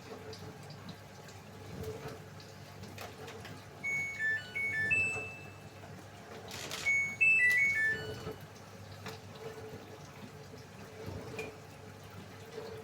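Samsung AddWash washing machine playing its electronic end-of-cycle melody: two short phrases of clear beeps about three seconds apart, signalling that the spin and drain cycle has finished. A brief rush of noise comes just before the second phrase, over faint trickling water in the machine.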